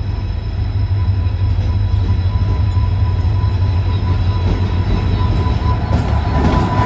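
Train hauled by twin EMD diesel locomotives: a steady deep engine rumble with a thin, steady high whine over it, and the rattle of wheels on rails growing louder, with clicks, near the end.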